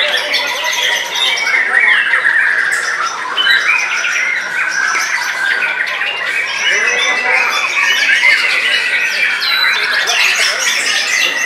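White-rumped shamas singing continuously, several birds at once, in a dense overlapping chorus of rapid whistles, trills and harsh chattering notes.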